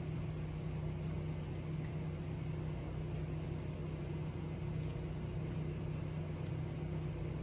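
Steady low hum of room background noise, with a few faint ticks.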